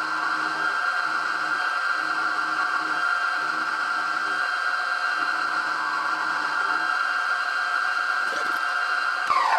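Milling machine spindle running with a steady high whine while an end mill cuts the end of a mild steel block, with an uneven lower cutting noise coming and going. Near the end the motor is switched off and the whine falls away quickly in pitch as the spindle winds down.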